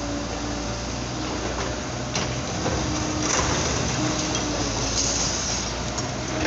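Liebherr 924 tracked excavator running, its engine and hydraulics held steady, as its grab tears into a building under demolition. There is a sharp crack about two seconds in, then crunching and scraping of concrete rubble breaking and falling, loudest a little past the middle.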